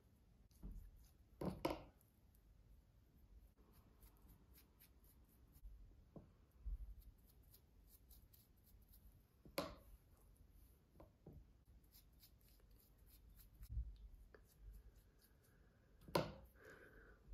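Faint handling sounds of gloved hands working hair dye through the hair, with three brief sharp clicks several seconds apart.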